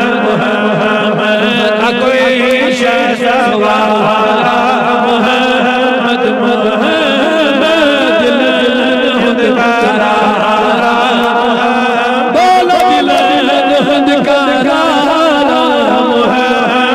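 Devotional chanting by several voices in a Kashmiri naat, their lines wavering and overlapping over a steady low drone, without a break.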